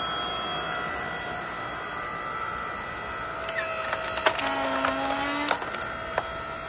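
WEN 6.5-ton electric log splitter running with a steady whine as its hydraulic ram forces a log onto the wedge. About four seconds in, a cluster of sharp cracks and splintering as the log tears apart: the wood is very green and stringy.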